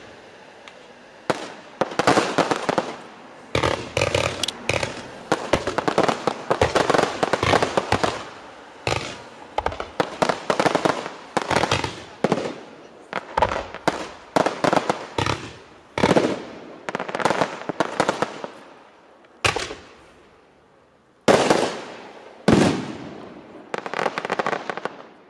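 Fireworks display: dense, rapid volleys of bangs and crackling from comets and aerial shells fired in quick succession, which thin out after about 19 s into a few separate loud single bursts, each with a trailing crackle.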